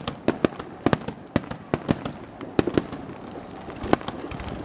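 Aerial fireworks in a finale: a rapid, irregular run of sharp bangs and cracks, two or three a second, over a continuous crackle.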